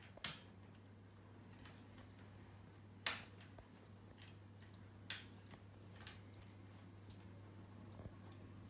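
Chihuahua gnawing a hard chew bone: a few sharp clicks and taps of teeth on the bone, spaced a second or more apart with the loudest about three seconds in, over a faint steady hum.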